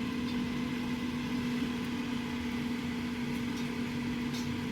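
Air fryer's fan running with a steady electric hum, a constant mid-low tone over an even whir.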